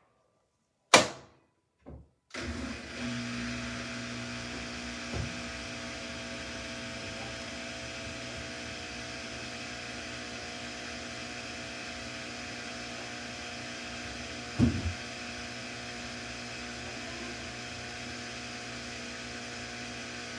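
Samsung washing machine running: a sharp click about a second in, then a steady hum with several steady tones sets in and runs on, with two short knocks about 5 and 15 seconds in.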